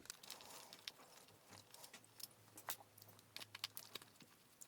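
Faint, scattered small clicks and ticks of a screwdriver undoing a screw on a hot air gun, with small parts being handled.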